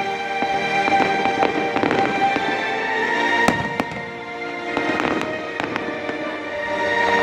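Fireworks display: a steady scatter of crackling pops and sharp bangs, over music playing long held notes.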